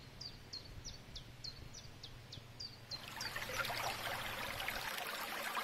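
A songbird repeats a short, high chirp about three times a second. About three seconds in, the trickling and babbling of a shallow forest stream takes over.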